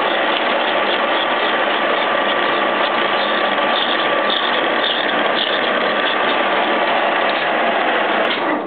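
Horizontal boring machine running under a cut, its boring bar turning at about 100 RPM with a single-point tool enlarging a connecting-rod bore. The gear train gives a loud, steady clatter with a constant whine, and the noise falls away at the very end.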